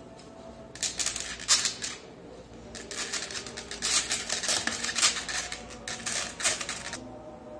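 Rapid clicking, rustling and light clatter from handling a handheld sprayer and its fittings in a polystyrene packing box. It comes in two spells, with a short pause about two seconds in.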